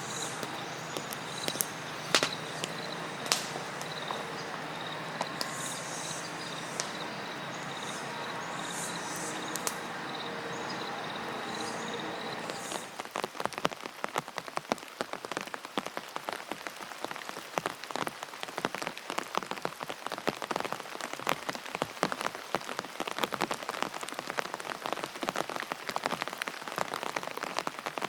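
Rain falling: an even hiss for roughly the first half, then dense, irregular drop hits on a surface from about halfway through.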